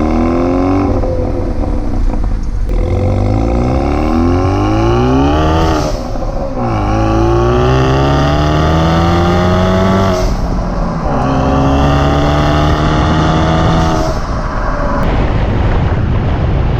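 Modified Kia Cerato's turbocharged 1.6-litre four-cylinder accelerating hard through the gears. The engine note climbs steadily in each gear and drops at each of several upshifts, with a brief dump-valve hiss at the shifts.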